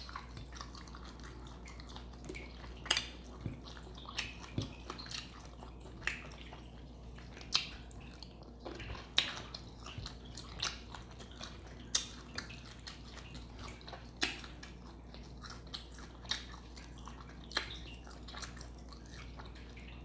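Close-miked eating sounds of someone eating a seafood boil: wet chewing, lip smacks and sharp mouth clicks at an irregular pace of one or two a second, over a steady low hum.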